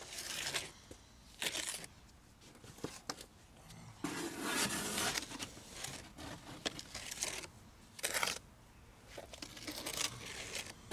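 A trowel scraping and spreading wet cement plaster along the foot of a foundation wall, in a series of rough scraping strokes, some short and some over a second long.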